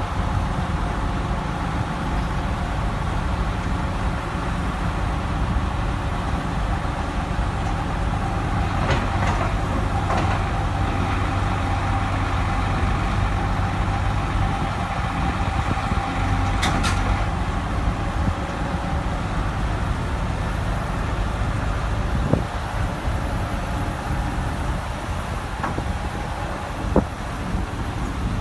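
Sumitomo LS2800DJ hydraulic excavator's diesel engine running steadily, with a few short knocks scattered through it.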